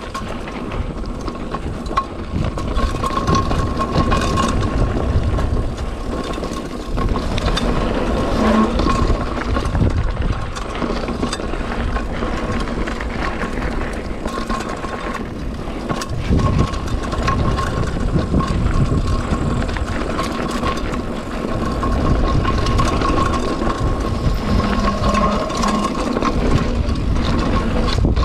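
Mountain bike riding down a dirt and gravel trail: the tyres rumble over the rough ground and the bike rattles and knocks over bumps, mixed with wind buffeting the action camera. A steady high thin tone runs underneath.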